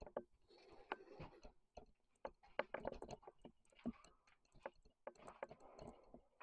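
Faint footsteps in an empty room: irregular light taps and clicks scattered throughout, some a little louder than others.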